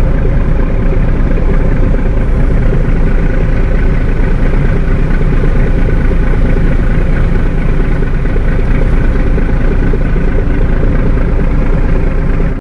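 Tugboat diesel engine running at a steady, even pace, heard from on deck.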